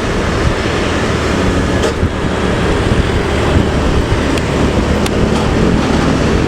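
Intercity bus's diesel engine and exhaust running in highway traffic: a steady low drone over road and tyre noise, with a few brief sharp ticks.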